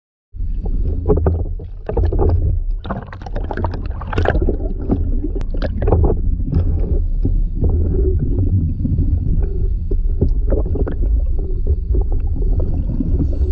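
Underwater sound picked up through a camera housing: a steady low rumble of moving water with irregular bubbling and crackling.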